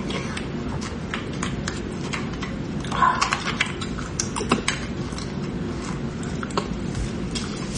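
Close-up wet eating sounds of beef bone marrow being eaten: quick mouth clicks, smacks and sucking, with a metal spoon scraping the marrow out of the bone, and a louder run of smacking about three seconds in.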